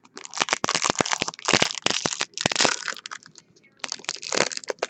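Foil wrapper of a Bowman Chrome trading-card pack crinkling and crackling as it is handled and torn open, with a short pause about three and a half seconds in.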